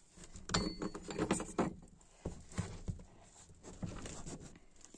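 Irregular wooden knocks and clatter from a chicken coop's board door being opened and stepped through: a cluster of knocks in the first two seconds, then a few fainter scattered ones.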